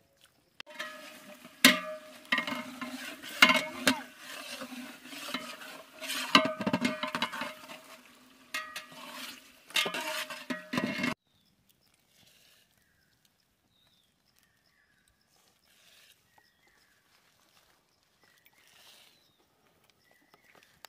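Metal ladle stirring and scraping in an aluminium cooking pot, with repeated sharp clanks against the pot and a steady ringing under them. It stops abruptly about eleven seconds in, leaving near silence.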